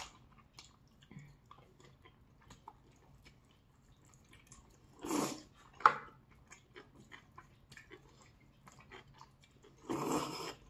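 Close-up eating sounds: wet chewing and lip smacks throughout, with two loud slurps of black-bean-sauce noodles (jjajangmyeon), about five seconds in and near the end. A single sharp click comes just before the six-second mark.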